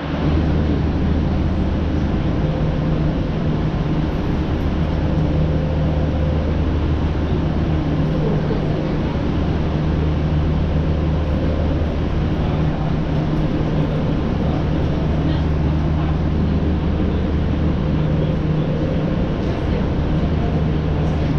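Steady low machinery hum at an aerial tramway boarding station, a constant deep drone that neither rises nor falls.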